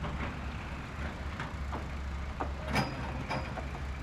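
Street ambience: a steady low traffic rumble with scattered small clicks and knocks, and a brief high-pitched tone about three seconds in.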